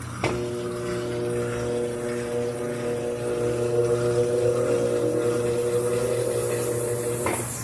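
Electrolux Essencial Care LES13 washing machine running: a steady motor hum that starts a moment in and stops abruptly near the end.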